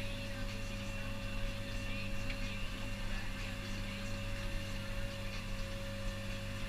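Tractor engine running steadily, heard from inside the cab: a low drone with a steady higher whine over it.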